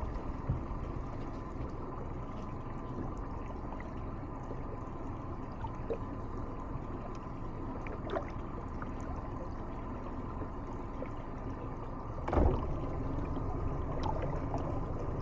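Water lapping and trickling against a small fishing boat's hull over a steady low background rumble, with a few faint ticks and one louder knock about twelve seconds in.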